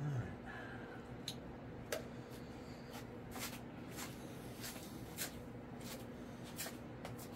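Scattered light clicks and knocks of small items being handled, about one a second, over a steady low hum.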